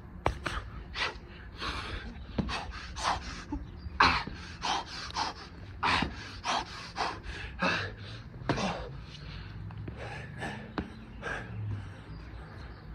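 A man breathing hard and fast from exertion, short forceful panting breaths and gasps about two a second.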